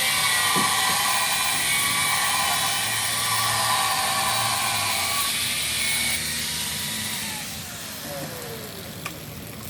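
Electric power tool running with a loud hissing, grinding noise, then switched off, its motor winding down in a falling whine.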